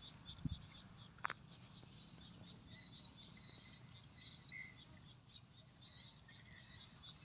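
Faint rural ambience with small birds chirping softly and intermittently in the background, a low thump just after the start and a single sharp click about a second in.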